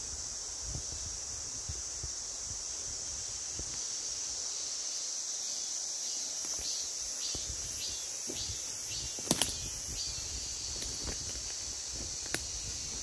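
A steady, high-pitched chorus of insects, joined in the middle by a pulsed chirping about two to three times a second. Under it are footsteps and rustling through dry leaf litter and twigs, with two sharp cracks close together about nine seconds in.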